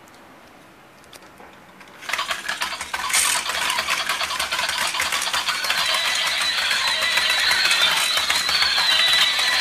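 Battery-powered walking toy horses starting up about two seconds in: a rapid, loud mechanical clatter of their small gear motors and plastic legs, with a thin steady high tone joining about halfway through.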